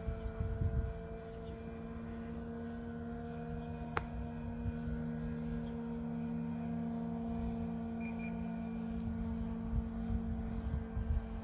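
Hangar 9 Cub electric RC model plane's motor and propeller, humming at a steady pitch in flight, with wind rumbling on the microphone and a single sharp click about four seconds in.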